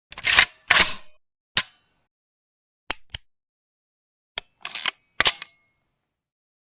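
Empty guns dry-firing: a series of short, sharp clicks of the firing mechanism falling with no cartridge, some single and some in quick pairs or clusters, separated by silence.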